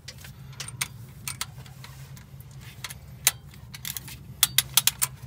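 Ratchet wrench and socket being worked on engine bolts: irregular metallic clicks and clinks, with a quick cluster of sharper clicks near the end, over a steady low hum.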